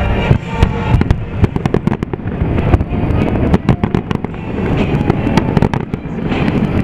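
Aerial fireworks shells bursting and crackling, a rapid run of sharp pops and bangs through the first few seconds, over synchronized show music that comes back up near the end.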